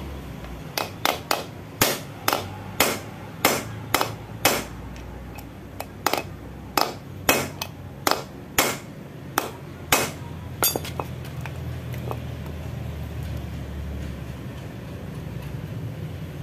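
Hammer blows on a steel rod set in the valve guide of a Yamaha Mio scooter's aluminium cylinder head, driving the guide out. There are about twenty sharp metallic strikes, one to two a second, which stop about eleven seconds in.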